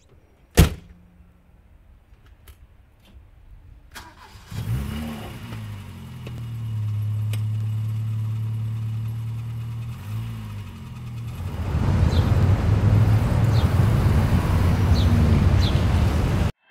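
A sharp knock and a few faint clicks, then a car engine starting a little over four seconds in and idling steadily. It is revved briefly near ten seconds, then runs louder and rougher, rising and falling in revs, for the last few seconds.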